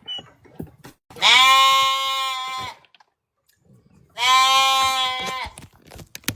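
Goats bleating: two long, level bleats, each about a second and a half, with faint small clicks and rustles between them.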